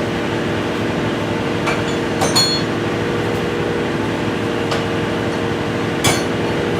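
A steady machine hum, with light metallic clinks about two seconds in and again near the end as metal parts are handled.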